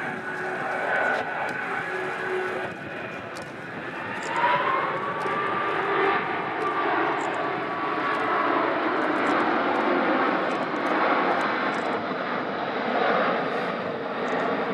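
Jet noise from an Airbus A380's four turbofan engines as the airliner flies overhead. The noise swells about four seconds in, with a whine that rises and then holds steady.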